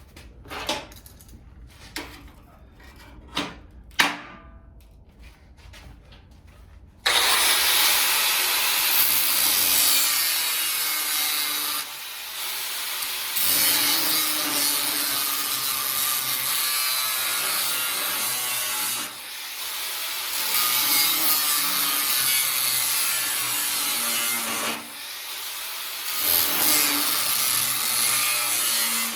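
A few knocks, then from about seven seconds in a loud power tool runs steadily on the car's rocker panel, easing off briefly three times.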